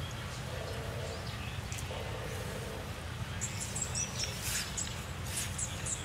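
Outdoor ambience with birds chirping: a run of short, high chirps in the second half, over a steady low rumble.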